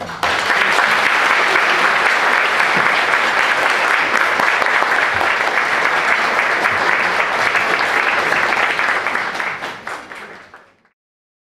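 Audience applauding after a performance: dense, steady clapping that starts abruptly and fades out near the end.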